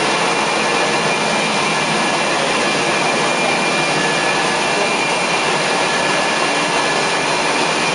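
Carpet-cleaning extraction vacuum running steadily through the Rotovac 360i rotary extraction tool, a loud rushing noise with a constant high whine.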